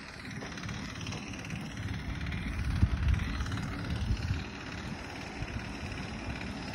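Wind buffeting the microphone: an uneven low rumble with stronger gusts about three and four seconds in.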